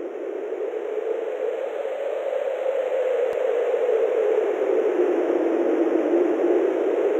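A steady rushing noise, a sound-design swell in the soundtrack, growing gradually louder with its pitch sinking slightly. There is a faint tick about a third of the way in.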